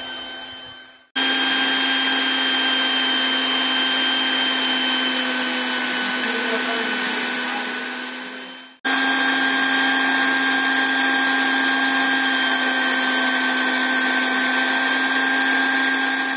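Toplink PVC hot-air welding machine running: a steady blowing whir like a hair dryer, with a steady whine over it. It starts abruptly about a second in, fades and stops near the middle, then starts again abruptly and runs on.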